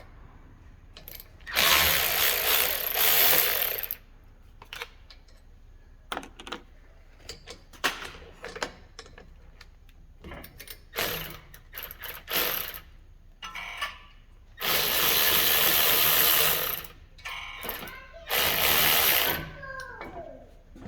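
A handheld power tool runs in three bursts of about two seconds each, backing out the brake assembly's bolts. Short metallic clicks and clinks of tools and parts come between the bursts.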